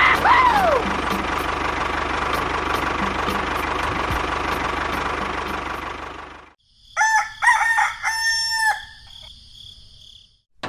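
A small engine running steadily, with a short falling whistle near the start. It cuts off abruptly and a rooster crows in several drawn-out notes, then fades.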